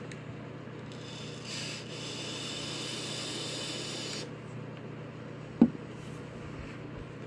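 An electronic vape hissing and crackling as it fires during a long draw of about three seconds, then stopping. A single sharp click comes about two seconds later.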